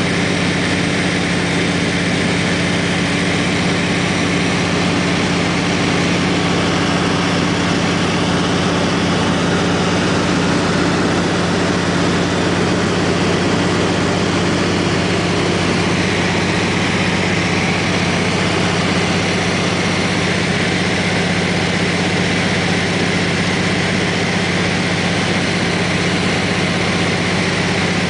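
Floatplane engine and propeller running steadily in flight, heard from inside the cabin: an even, unchanging hum with a few steady low tones.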